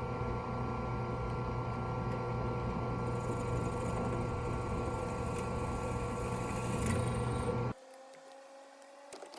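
An electric power tool's motor running steadily at one speed. It stops abruptly near the end, and a few sharp clicks follow.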